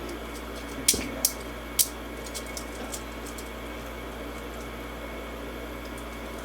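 Handcuffs clicking and rattling as they are locked and tugged: three sharp clicks about a second in, then a few faint ticks, over a steady background hiss.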